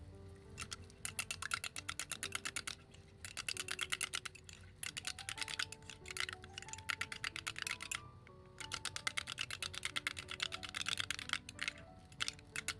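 Background music with a simple stepped melody, over runs of rapid clicking lasting a few seconds each, with short gaps between them.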